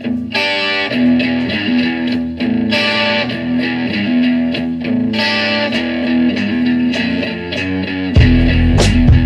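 Instrumental intro of a blues-rock song: a distorted electric guitar plays a riff that repeats about every two and a half seconds over a held low note. About eight seconds in, a heavy low end comes in loudly, the bass and drums entering.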